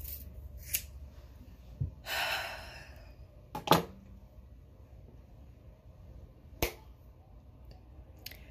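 Scissors snipping through the last lock of hair, then a short rush of noise and a few scattered sharp clicks and knocks, the loudest just before halfway.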